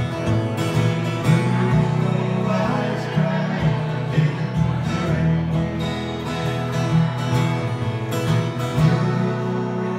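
Two steel-string acoustic guitars played live, strumming and picking a slow country ballad.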